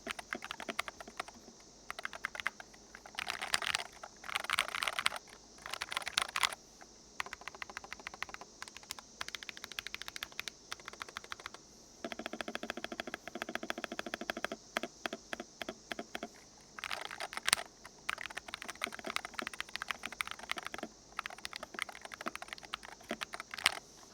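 Typing on a GK Gamakay NS68 60% keyboard with magnetic Hall effect switches: key clacks in quick runs with short pauses, including some stretches of very rapid keystrokes. The sound is very average and hollow, which the reviewer puts down to the case having no foam or gaskets inside.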